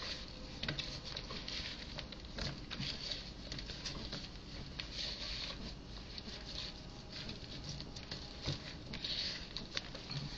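Oiled acorn squash slices being tossed by hand with herbs and grated Parmesan: soft, irregular pattering and small clicks as the pieces are turned over.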